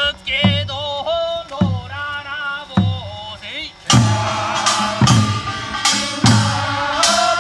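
Korean pungmul folk band playing: a melody over a drum beating about once every 1.2 seconds. From about four seconds in, bright metallic strikes join roughly twice a second.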